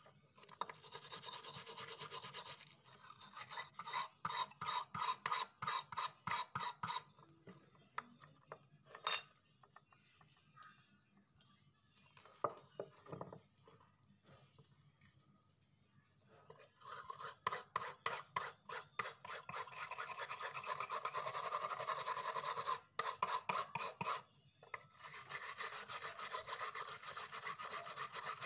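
Hand-held wire cup brush scrubbing rust off a small old steel knife blade in quick, rhythmic rasping strokes. The scrubbing stops for several seconds midway, with only a few scrapes, then resumes faster and denser for the rest.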